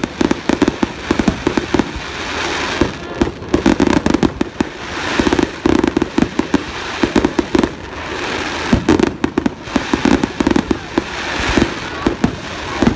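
Aerial fireworks shells bursting in rapid volleys: dense runs of sharp bangs come in several waves, with a crackling hiss between them.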